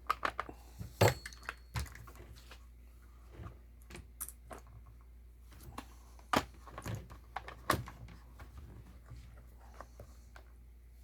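Chainsaw being reassembled by hand: clicks and clunks of the side cover being fitted over the bar and chain, with a few sharp knocks, the loudest about a second in and two more later on.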